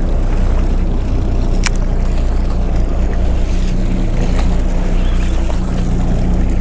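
Boat engine running steadily at low revs, a continuous low drone under wind and water noise. A single sharp click comes about a second and a half in.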